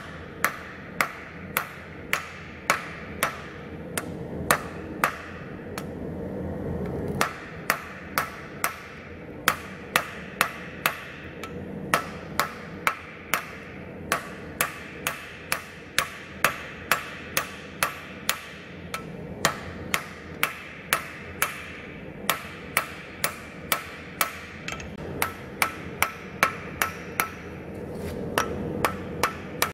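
Hand hammer striking a red-hot steel knife blank on an anvil, in a steady rhythm of about two blows a second with a short pause about six seconds in. The blows are forging the blank's tip down into the curve of the blade.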